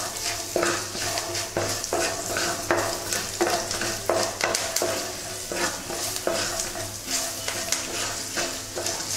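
Mustard seeds, dals and spices sizzling in hot oil in a nonstick frying pan, stirred with a wooden spatula that scrapes across the pan about twice a second.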